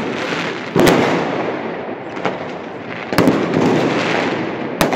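Fireworks display: three sharp shell bursts, about a second in, after three seconds and near the end, with continuous crackling from the stars between them.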